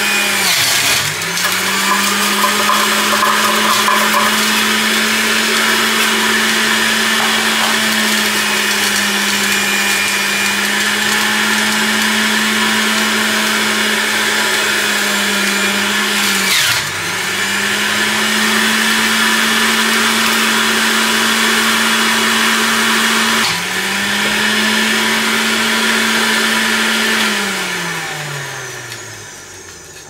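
Moulinex centrifugal juicer running at speed with a steady high whirr as produce is pushed down the feed chute. Its motor pitch dips sharply and recovers three times. About 27 seconds in it is switched off, and the pitch falls steadily as it spins down.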